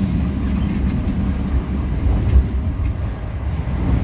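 Inside a moving passenger train carriage: a steady low rumble of the wheels running on the track, with one brief knock a little past halfway.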